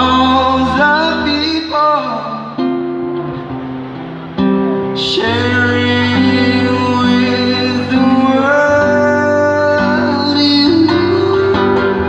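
A man singing into a microphone over acoustic guitar accompaniment, amplified through PA speakers.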